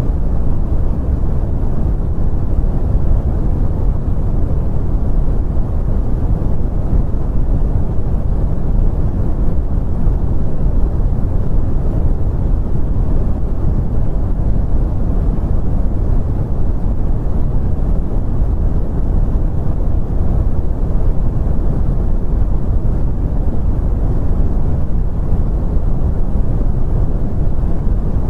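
Brown noise: a steady, deep rumbling hiss with most of its energy in the low end and little above about 2 kHz, unchanging throughout.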